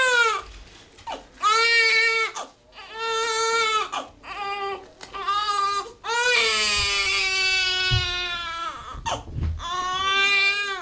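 Newborn baby crying while being handled and dressed on a changing table: a string of short, high-pitched wails, then one long wail about six seconds in that lasts nearly three seconds, then another short wail.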